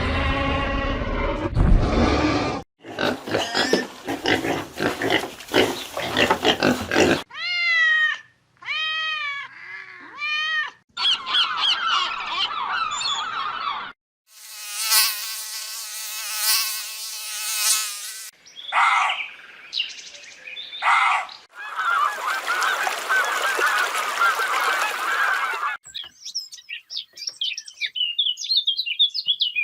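Calls of several different animals in quick succession, each cut off abruptly as the next begins. Among them, a little past a quarter of the way in, are three separate arched, honking calls.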